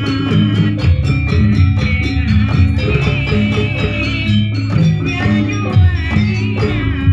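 Javanese jaranan-style dance accompaniment music: pitched melodic instruments playing a repeating melody over a steady percussion beat.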